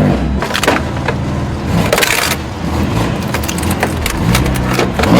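A vehicle running, with repeated sharp knocks and crunching noises throughout.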